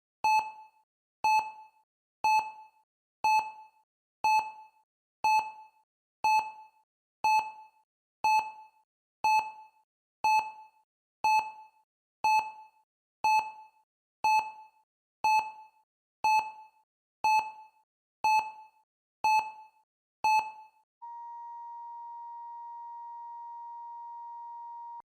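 Electronic countdown timer blipping once a second, each blip short and pitched. About 21 seconds in, a long steady beep sounds for about four seconds and cuts off suddenly: the alarm that the countdown has run out.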